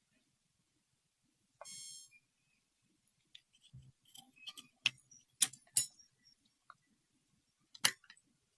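Small hard objects being handled: a short high squeak about two seconds in, then a scatter of sharp clicks and taps, with one last loud click near the end.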